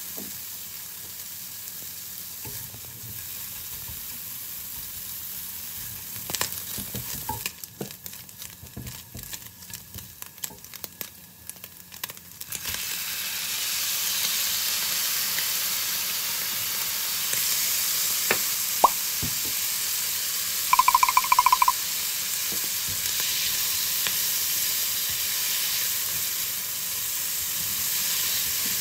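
Spam and kkakdugi fried rice sizzling in a frying pan as it is stirred with a utensil. In the middle there are scattered taps and scrapes on the pan. From about halfway in the sizzling grows louder and steadier, with a brief pulsing high tone a little later.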